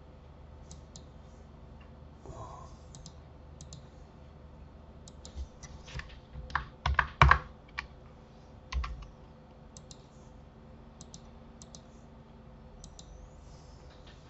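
Computer keyboard keys and mouse clicks, scattered and sparse, with a louder run of key presses about halfway through, over a faint steady hum.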